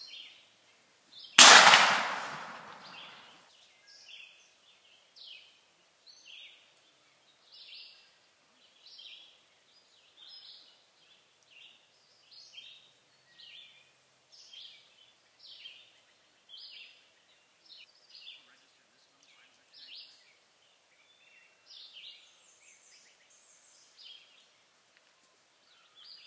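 A single shotgun blast about a second and a half in, echoing away over about two seconds. A songbird sings short high phrases over and over throughout.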